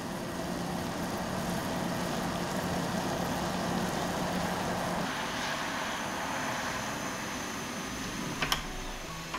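Water and butter bubbling and sizzling in a saucepan on a portable gas burner, with the burner's steady hiss. Near the end there are two sharp clicks.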